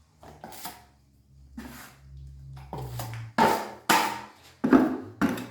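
A metal drywall knife scraping joint compound against a mud pan in repeated strokes, faint at first and then loud and quick, about two strokes a second. Faint music plays underneath.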